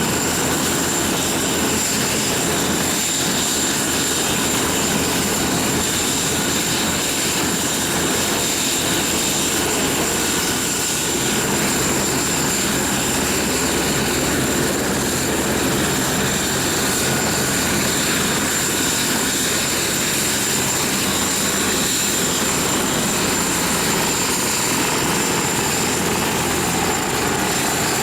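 Bell 412 twin-turbine helicopter running steadily, a high turbine whine over the fast, even beat of the rotor.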